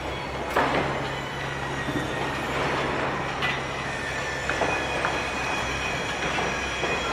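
Construction site ambience: steady machinery hum and rumble with occasional sharp metal clanks and a faint high squeal.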